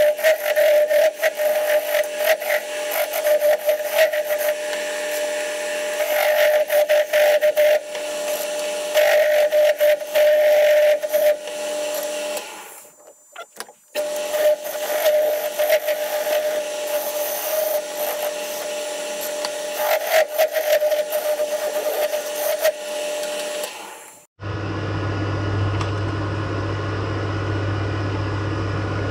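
1970s Coronet wood lathe turning an ash blank, a hand-held turning tool cutting into the spinning wood with a continuous scraping, rasping noise over a steady whine. The cutting breaks off briefly about halfway. About four seconds before the end it stops abruptly, leaving a steadier low hum.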